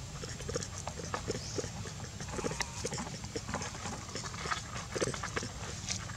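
Close-up macaques grooming and a baby nursing: irregular soft clicks, scuffs and small animal noises, several a second, over a low steady rumble.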